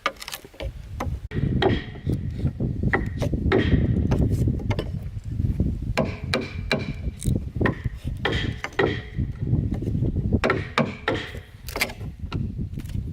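Hand tools striking wood: irregular knocks and chops, several a second at times, over a low rumbling noise.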